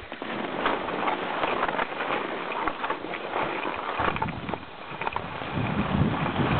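Skis sliding and scraping over packed snow, with irregular crunches. From about four seconds in, wind rumbles on the microphone.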